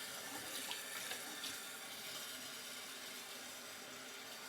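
A bathroom sink tap running softly, an even hiss, with a few faint ticks in the first second and a half.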